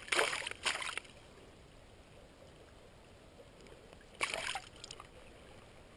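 Water splashing in short bursts as a sea-run cutthroat trout is worked out of a landing net and released: splashes in the first second and again about four seconds in, with low river background between.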